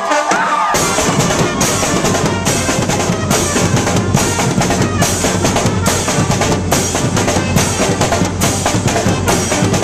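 A brass band's drum section playing a loud, fast drum break on bass drum, snare and cymbals, with a cymbal stroke about every three-quarters of a second. The band's held brass chord cuts off within the first second.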